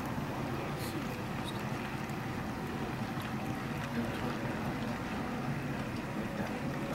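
Sn3 model freight train rolling past, its metal wheels making a steady rumble on the track, with a few faint clicks.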